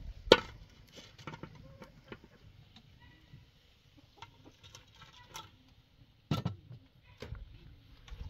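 Metal cooking pots knocking and clinking as they are set down and handled on a metal stove: a sharp clank about a third of a second in, faint scattered ticks, then a louder knock about six seconds in and a smaller one shortly after.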